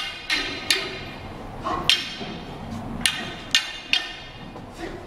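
Wooden staffs clacking sharply against each other as two fighters exchange strikes, about seven hard knocks at uneven intervals over the first four seconds.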